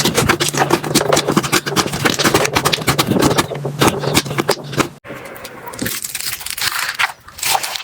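Slime being squeezed and poked by hand, giving a dense stream of sticky clicks and pops. It changes abruptly about five seconds in to sparser crackling.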